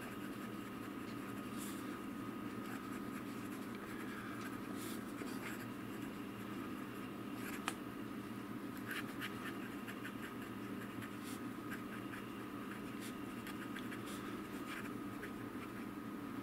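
Gold medium nib of a Platinum fountain pen scratching faintly across paper in short strokes while writing, over a steady low hum. One sharp tick about eight seconds in.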